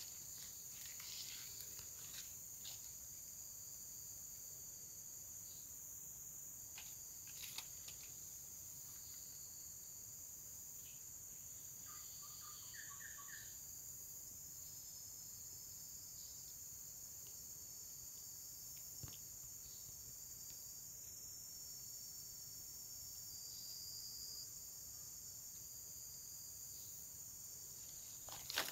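Faint, steady insect chorus, crickets trilling without a break on several high pitches at once. A few soft clicks and a short burst of chirps about twelve seconds in.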